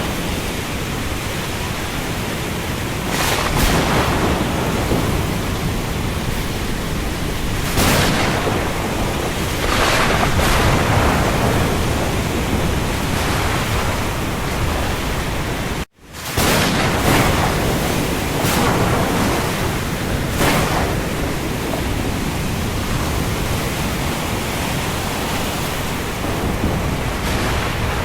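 Steady heavy rain at sea, a dense hiss with gusts or waves surging up every few seconds. The sound cuts out for an instant a little past halfway and comes straight back, a splice in the looped recording.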